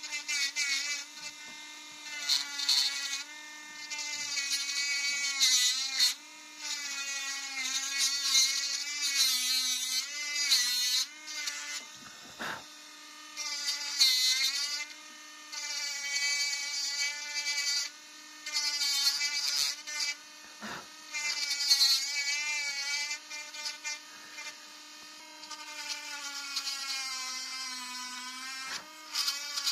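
Mini rotary engraving pen running with a steady high whine, switched on right at the start. Its pitch wavers as the bit bites into the wooden knife handle, with repeated bursts of scratchy hiss from the cutting, and it dips sharply twice.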